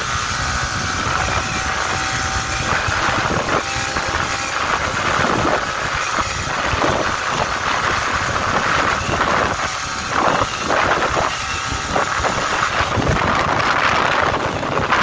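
Yamaha R15 V4's single-cylinder engine running hard at high revs near top speed, about 104 to 116 km/h, under heavy wind noise on the microphone.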